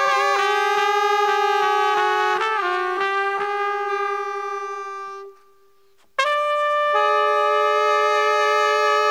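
Trumpet and saxophone holding long notes together in a slow jazz passage. The notes fade away about halfway through, leaving a second of near silence. Then both come back in sharply on a new held chord.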